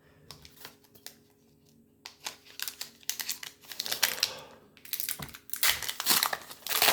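Crinkling and rustling of a plastic trading-card pack wrapper being handled. There are only a few faint clicks at first, then from about two seconds in a dense run of quick crackles that grows louder near the end.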